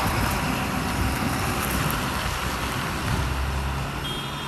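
Goods truck driving past and pulling away along a mountain road, its engine and tyre noise slowly fading as it goes.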